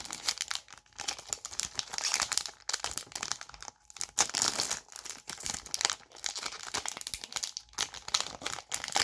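Foil wrapper of a hockey-card pack being torn open and crinkled by hand, an irregular run of crackling with a few short pauses.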